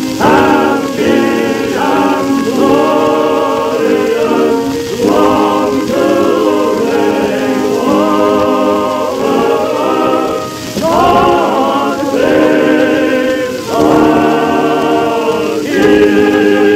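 Male chorus of a minstrel troupe singing a patriotic finale together, loud, with notes held and short breaks between phrases. The sound is an early acoustic Edison Kinetophone recording.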